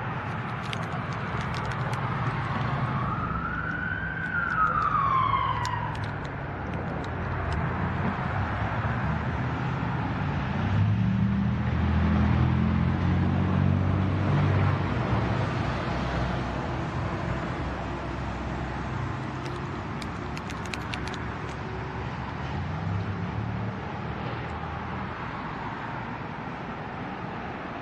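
Steady low traffic rumble with one emergency-vehicle siren wail, rising and then falling in pitch, a few seconds in. An engine's low rumble builds to its loudest about halfway through.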